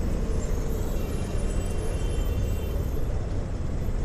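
Steady low rumble of wind and traffic noise heard from a moving electric scooter in city traffic, with a faint high whine for about two seconds in the middle.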